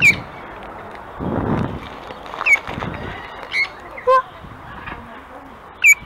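Short, sharp parrot squawks, five in all, most of them a quick falling note. One a little past the middle is lower and more honk-like.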